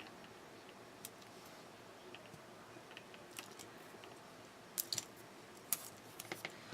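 Faint, scattered clicks and light rustles of cut paper pieces being handled and pressed together during paper crafting.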